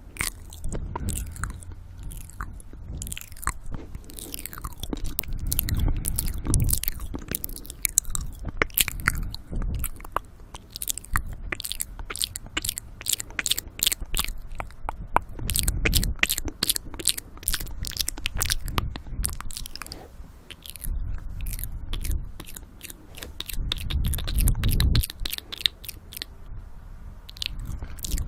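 Close-miked ASMR mouth sounds: a dense, uneven stream of sharp mouth clicks and smacks, with heavy breathing into the microphone swelling up several times.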